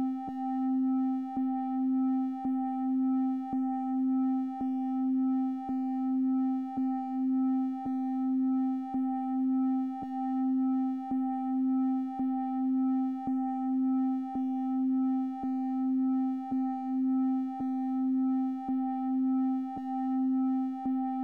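Electronic 1 Hz pulsed tone: a steady mid-pitched synthesized tone with fainter higher tones above it, swelling and fading about once a second with a faint click at each beat.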